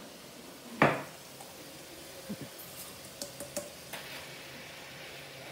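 A steel bowl knocks sharply against a frying pan once, about a second in, as boiled pasta is tipped into the sauce. A few light clinks and scrapes of bowl and spatula follow.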